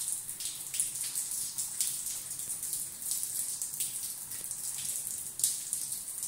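Water from a burst pipe running down from the opened ceiling and splashing onto the floor: a steady hiss with irregular louder drops and splashes.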